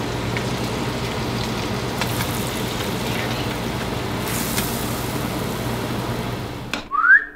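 Trout fillet sizzling in butter in a frying pan: a steady hiss with a low hum under it, cut off abruptly near the end.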